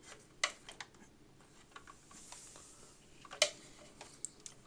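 A few small, sharp clicks and taps of an M.2 NVMe SSD being seated in its motherboard slot and screwed down. The loudest click comes about three and a half seconds in.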